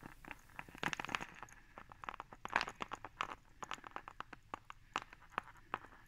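Faint, irregular clicks and light taps of handling noise, bunched about a second in and again around two and a half seconds in, then scattered single clicks.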